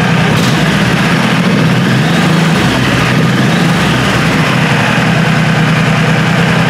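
Honda Shadow Spirit 1100's V-twin engine idling steadily while its two Keihin carburetors are balanced on a water manometer. Its pitch rises briefly and settles back about two to three seconds in.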